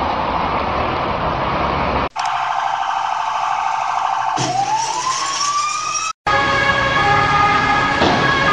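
Road traffic noise. After a sudden cut it gives way to an emergency-vehicle siren whose pitch rises steadily for about two seconds. A second sudden cut brings in several steady, sustained tones.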